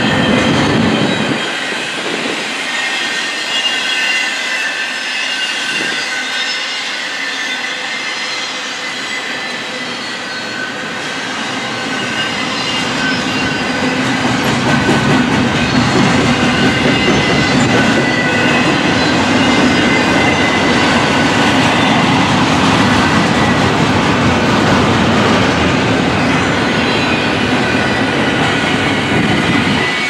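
Double-stack intermodal container train rolling past: steel wheels rumbling and clattering on the rails, with steady high-pitched wheel squeal over the top. It grows louder in the second half.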